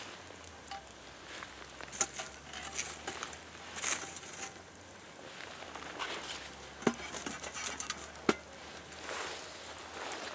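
Wood knocking and scraping against the logs and embers of a smouldering campfire as they are pushed into place with a split stick, with scattered sharp clicks and crackles; the two sharpest come about seven and eight seconds in.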